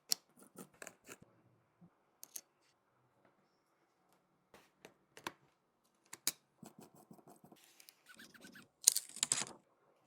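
Small repair tools clicking and tapping on a phone in scattered single strokes, with a longer scrape about nine seconds in.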